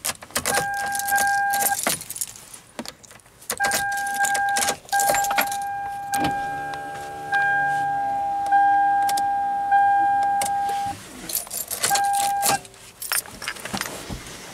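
Keys jangling and clicking at a 2003 Toyota Highlander's ignition, while the car's steady warning tone sounds in several stretches, cutting out and back in. About six seconds in, a power window motor hums for roughly two seconds as the open window is run up.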